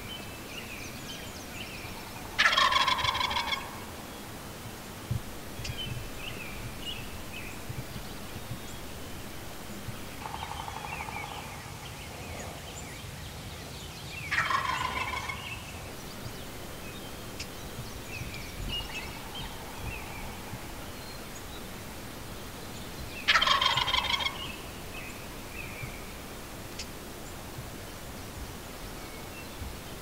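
Wild turkey gobbler gobbling three times, each gobble about a second long and roughly ten seconds apart.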